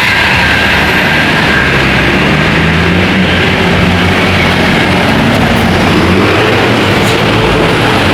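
A large tour bus's engine running loud and close as it passes, mixed with road and tyre noise; the low engine note rises slightly a few seconds in.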